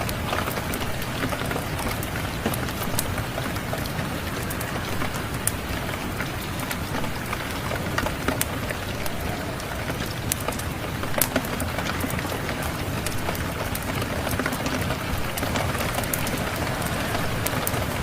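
Steady rain falling, with scattered sharp pops and clicks of a crackling wood fire over it.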